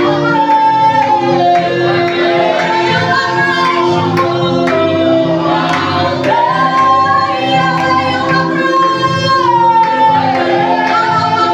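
Gospel praise and worship music: sung vocals with a steady instrumental backing.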